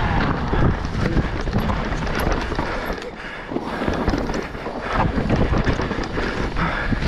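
Mountain bike descending a dirt forest trail at speed: wind buffeting the camera microphone, tyres rumbling over dirt and roots, and a constant clatter of knocks and rattles from the bike over the bumps. It eases slightly for a moment about three seconds in.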